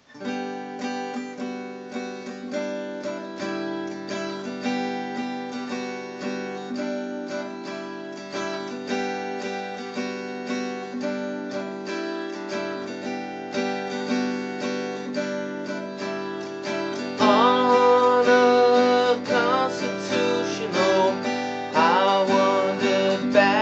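Acoustic guitar music, a steady picked and strummed accompaniment. Near the end a louder melody joins in.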